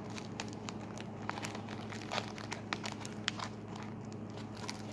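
A homemade tape-covered paper squishy being squeezed and turned in the hands, its clear packing-tape skin crinkling and crackling irregularly, over a steady low hum.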